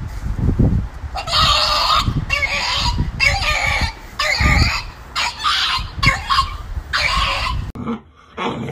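French bulldog's 'battle cry': a series of about seven loud, high-pitched screaming cries, each about half a second long. Near the end comes a low dog growl.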